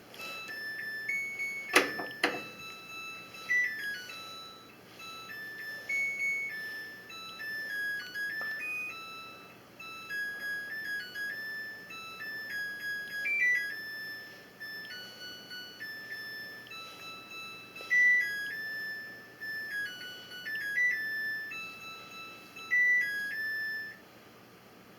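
Washing machine's end-of-cycle chime playing a long electronic beep tune, note after note, signalling that the wash is done. A couple of sharp knocks sound about two seconds in.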